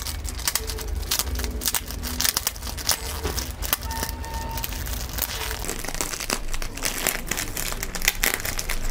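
Clear plastic packaging sleeve and paper mailer crinkling and rustling as they are handled and pulled open, with dense irregular crackles.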